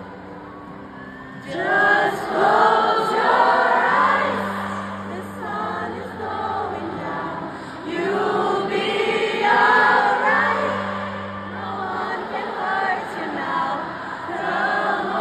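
Live music: a woman singing a slow song to acoustic guitar, with a large crowd singing along loudly. The sound is quieter for about the first second and a half, then the massed singing comes in.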